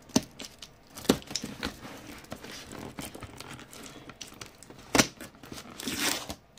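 Plastic courier packaging of a parcel crinkling and rustling as it is handled and opened, with a few sharp snaps, the loudest about five seconds in.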